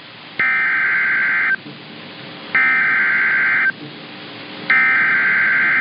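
Emergency Alert System SAME header: three bursts of buzzing digital data tones, each about a second long with about a second's pause between them. They mark the start of a new alert broadcast.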